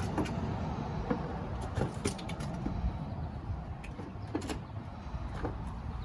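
Scattered clicks and light knocks from a Jeep Wrangler JK's airbox being unclipped and pulled out, over a steady low background rumble.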